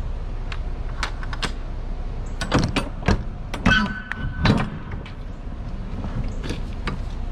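Metal clanks and knocks of a semi-trailer's rear-door lock bars and handles being worked, with a short ringing metallic squeal about four seconds in. A steady low rumble runs underneath.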